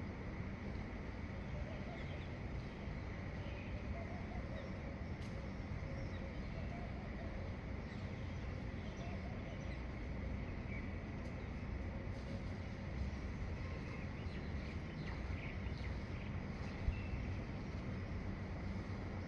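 Faint, scattered bird chirps over a steady low rumble and hiss, with a thin steady high whine underneath.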